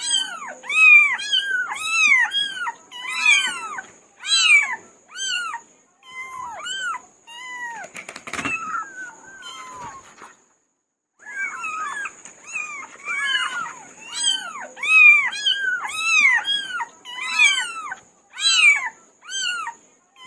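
Several kittens meowing over and over, with high, thin, overlapping meows in quick succession. The calling stops completely for about a second, just past the halfway point, then resumes.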